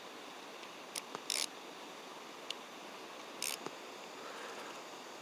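Fishing rod and reel being handled while the lure sinks: a click, two short raspy bursts about two seconds apart and a faint tick, over a steady faint hiss.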